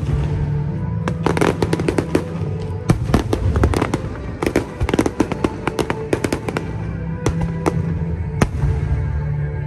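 Aerial fireworks bursting in quick clusters of sharp bangs and crackles, with music playing underneath.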